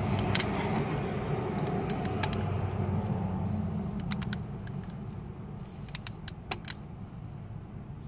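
Ratchet head of a torque wrench clicking in short, irregular runs as it turns a glow plug in the cylinder head, over a steady low rumble that eases about halfway through.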